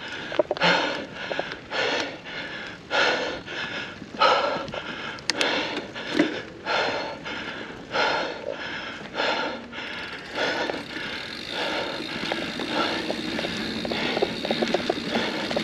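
Heavy, laboured breathing of a mountain biker on a hard climb, about one loud breath a second. From about ten seconds in, the breaths give way to a steadier rush with fast rattling from the bike rolling over rough trail.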